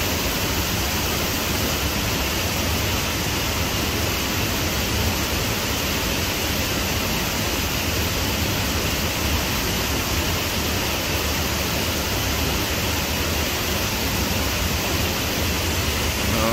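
Waterfall rushing steadily, an even, unbroken roar of falling water.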